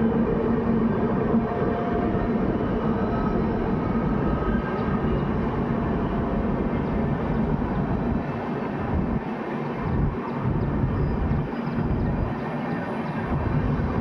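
Express train hauled by a WAP-7 electric locomotive passing slowly under a caution order: a steady rushing rumble of the train running by. A low steady hum fades out about a second and a half in, and the low rumble turns uneven and pulsing in the second half.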